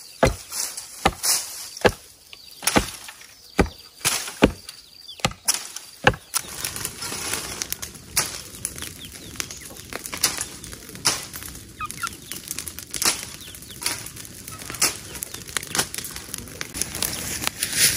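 A wooden pole ramming the earth around a bamboo fence post: a run of sharp thuds, about two a second, for the first six seconds. After that a steady crackling hiss from a burning pile of dry brush, with scattered sharper strikes of a hand tool hacking at the brush.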